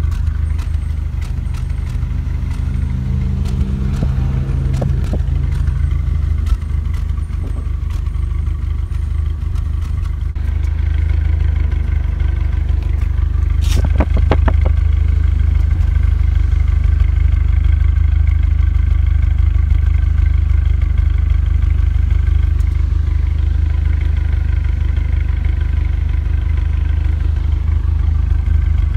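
Exhaust of a Renault Megane RS 225 Cup's turbocharged 2.0-litre four-cylinder idling at a steady pitch. In the first ten seconds it carries an intermittent puffing misfire, which the owner put down to the fuel injectors. After that it idles without the puffing, with the injectors cleaned and the MAP sensor seated more firmly. A short burst of sharp clicks comes about fourteen seconds in.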